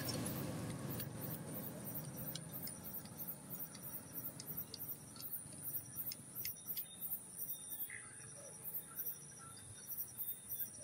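Night insects, crickets among them, trilling steadily at a high pitch with faint rapid chirps, plus a few faint ticks. A low rumble fades out over the first couple of seconds.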